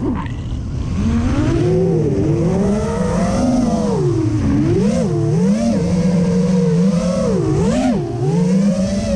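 FPV quadcopter's brushless motors and propellers whining, the pitch swooping up and down with the throttle through flips and rolls. The pitch drops sharply right at the start, with deep dips about five seconds and eight seconds in.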